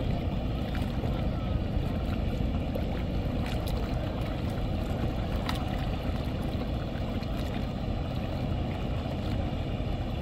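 Steady low drone of a large river passenger launch's diesel engines heard across the water, mixed with wind noise on the microphone.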